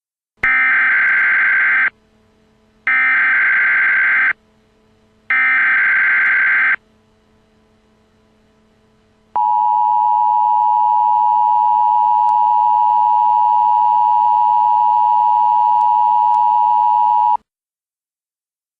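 Emergency Alert System header and attention signal. Three identical bursts of warbling digital data tones come first, each about a second and a half. Then the steady two-tone attention signal sounds for about eight seconds and cuts off sharply. Together they mark the start of a new emergency alert.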